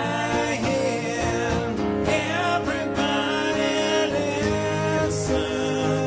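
Live acoustic rock: male vocals sung over two strummed acoustic guitars.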